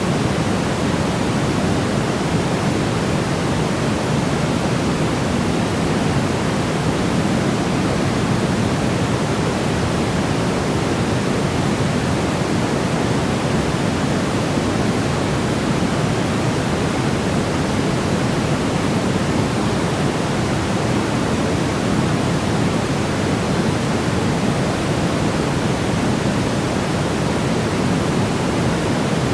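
Continuous white noise track, steady and unchanging, with its weight low down so it comes across as a soft, deep rush rather than a bright hiss.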